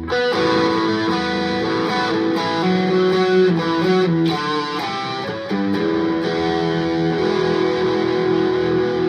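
Harley Benton SC-Deluxe electric guitar on its neck pickup, played through a metal distortion pedal into a Marshall MG15DFX amp: heavily distorted riffing and held chords, with a fresh chord struck about five and a half seconds in. It sounds appropriately meaty.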